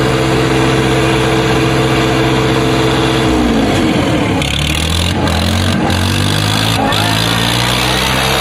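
Swaraj 855 FE and John Deere 5050 D tractors' three-cylinder diesel engines running at high revs. About three seconds in, their pitch sags and shifts as the engines take up the load of a tug-of-war pull at full throttle, then they labour on steadily.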